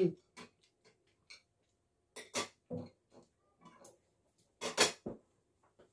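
Eating at a table: a few short, scattered clinks and scrapes of cutlery on a plate. The loudest comes about three-quarters of the way through.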